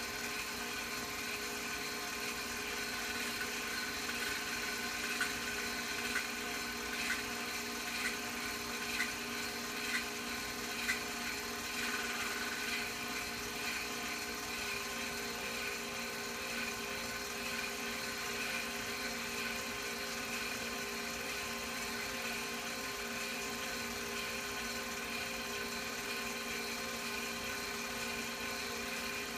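Film projector running with a steady whir. Light clicks come about once a second for several seconds about a fifth of the way in.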